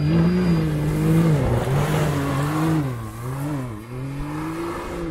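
Off-road vehicle engine revving unevenly under load, its pitch rising and falling several times as the throttle is worked, with a string of quick dips in the second half.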